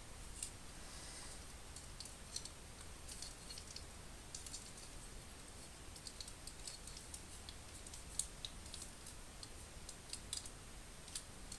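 Faint, irregular clicks and taps of hard plastic model-kit parts being handled and snapped together as a Gunpla Master Grade arm is fitted on.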